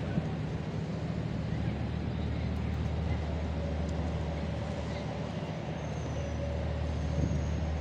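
Steady city traffic noise with a constant low rumble.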